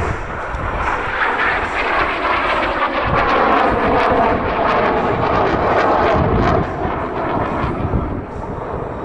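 T-38 Talon jet trainers, each with twin General Electric J85 turbojets, flying overhead in formation and banking away one after another for landing. Their steady jet noise eases slightly near the end as they move off.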